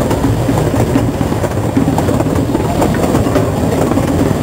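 Amusement-park play train riding along: a steady low rumble and rattle of the open passenger cars in motion.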